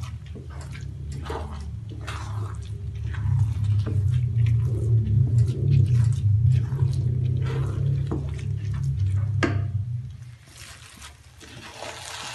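Wooden spatula stirring and scraping wet glutinous rice in coconut milk and broth in a pan, with wet squelching and repeated scrapes over a low hum that drops away about ten seconds in. Near the end a faint sizzle comes up as the liquid cooks into the rice.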